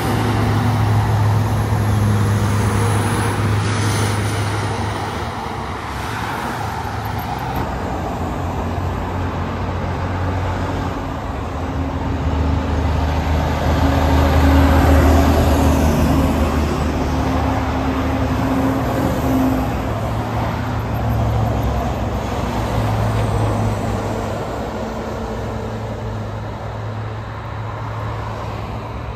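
Highway traffic with heavy trucks passing: a low diesel engine note over tyre noise on the road, swelling as vehicles go by and loudest about halfway through.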